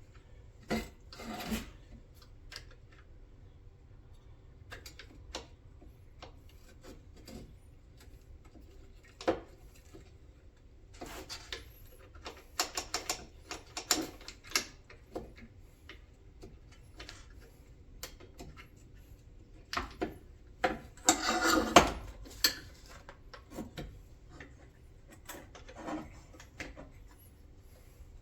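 Console shifter parts being handled and fitted together: irregular light clicks, knocks and scraping, coming in two busier clusters and loudest about three-quarters of the way through. A faint steady hum runs underneath.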